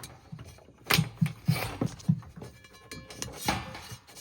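Hens clucking in a coop, a run of short low clucks, with a few sharp knocks as an electrical cord is pushed through the coop wall.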